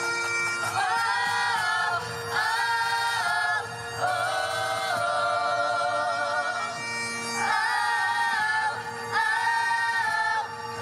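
A group of young performers singing a slow tune in long held phrases over a backing of music with a steady drone note underneath.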